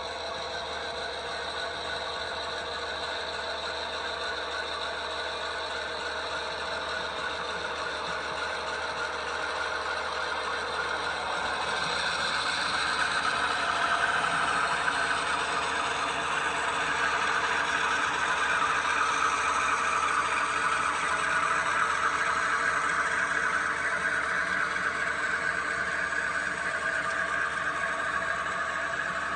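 HO scale model freight train running past, led by a pair of diesel locomotives: a steady mechanical hum and rattle of the models' motors and wheels on the track, getting louder as the locomotives come close about halfway through.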